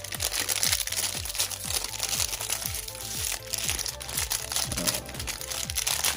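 Plastic packaging crinkling and crackling as it is handled, over background music with a steady beat.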